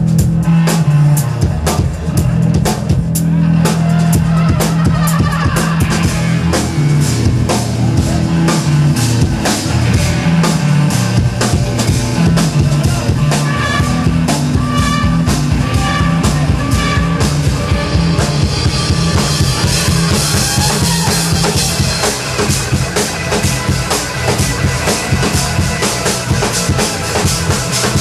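Live rock band with brass playing: a drum kit drives a steady beat under electric guitar, trombone and sousaphone, with the cymbals growing busier in the second half.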